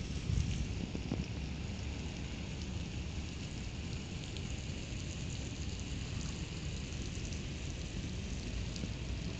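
Steady outdoor hiss with a low, unsteady rumble of wind buffeting the microphone, strongest in the first second, and faint scattered ticks.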